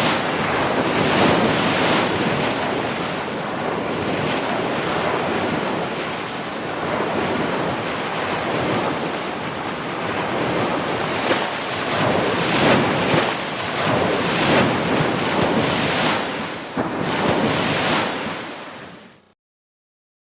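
Ocean surf washing in continuously, swelling and easing as waves break, then fading out quickly near the end into silence.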